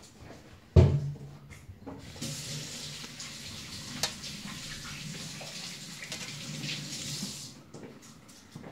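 A sharp thump about a second in, then a kitchen tap runs water steadily for about five seconds and shuts off.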